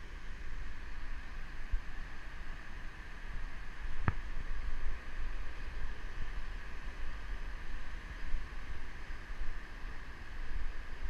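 Steady rush of a mountain river cascading over granite boulders, under a low rumble of wind on the microphone, with a single sharp click about four seconds in.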